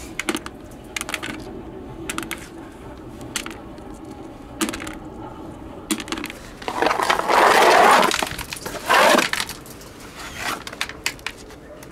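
Small sea snail shells clicking and clattering against each other and a plastic bucket. A wooden scraper rasps loudly across a concrete block about seven seconds in, and again more briefly about nine seconds in, as it scrapes the snails off.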